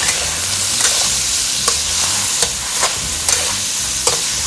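Minced pork frying in oil in a hammered wok, a steady sizzle. A spatula knocks and scrapes against the wok about once a second as the meat is stir-fried until crisp.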